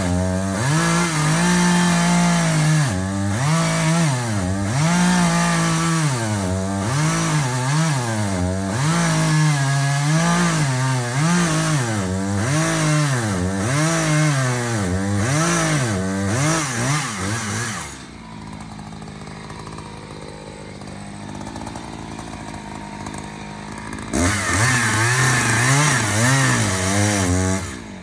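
Chainsaw engine running at high revs and cutting wood, its pitch dipping and recovering over and over as the chain takes the load. About two thirds of the way through it drops to a quieter, steadier sound for several seconds, then cutting resumes near the end.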